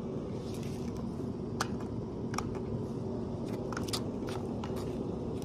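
Scattered sharp clicks and knocks from handling the camera and a toy drone's remote controller, over a steady low hum.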